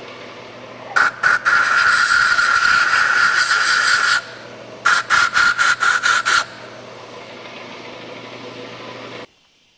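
Compressed-air blow gun blowing debris out of a car engine's thermostat housing: a couple of short blasts, then a long hissing blast of about three seconds with a whistling edge, then a string of about six short puffs. A steady low hum runs underneath and cuts off suddenly near the end.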